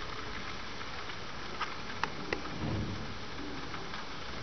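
Steady room hiss with a few light clicks of a ballpoint pen writing on paper on a hard tabletop, clustered between about one and a half and two and a half seconds in.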